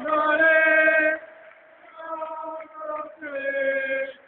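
Ice hockey ultras chanting together in long held notes: one loud phrase about a second long, a short pause, then two shorter phrases.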